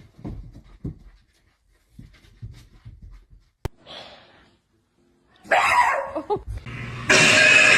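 A dog's breathing and brief vocal sounds over scattered low thumps and a sharp click. Music starts abruptly about seven seconds in and is the loudest thing heard.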